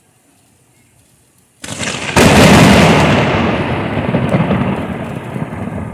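Close thunderclap: a sudden crack about one and a half seconds in, a louder burst half a second later, then a deep rumble that slowly fades.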